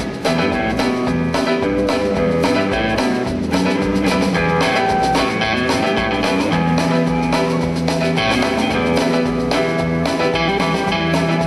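Background music: a guitar-led blues-style tune with a drum kit keeping a steady beat.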